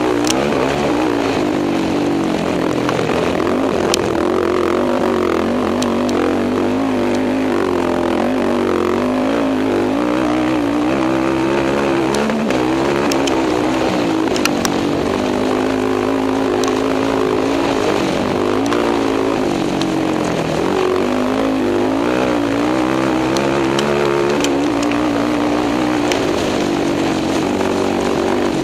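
Racing quad's engine heard from on board at speed, its revs rising and falling again and again as the rider works the throttle over rough desert track. A few sharp clicks are heard along the way.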